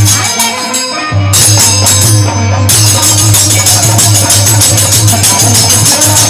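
Instrumental folk music with a fast, steady beat of jingling percussion over a deep drum; the deep drum drops out briefly about half a second in and comes back at about a second.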